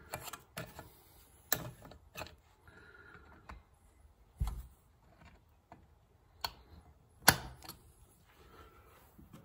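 Sparse, irregular clicks and taps of a small hand tool against the small metal fuel door hinge while trying to push out a stubborn hinge pin, with a dull knock about four and a half seconds in and the loudest click about seven seconds in.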